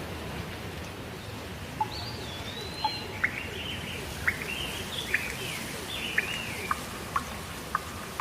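Rain ambience with birds singing: a steady low rush of rain under a run of warbling bird calls and short sharp chirps that start about two seconds in.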